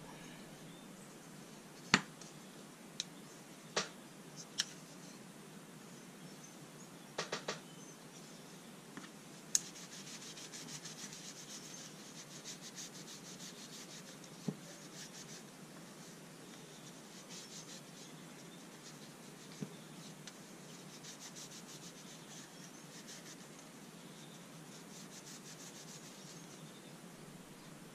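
A few sharp clicks and taps as the boxwood-and-brass folding rule is handled, then, from about ten seconds in, a paper alcohol wipe rubbing briskly back and forth along the wooden rule: a fine, fast, scratchy rubbing.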